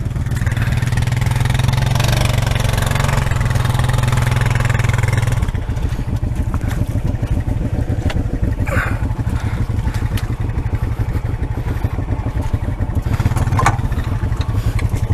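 ATV engine running at raised revs, then dropping to a steady, evenly pulsing idle about five and a half seconds in, with a couple of brief knocks or splashes over it.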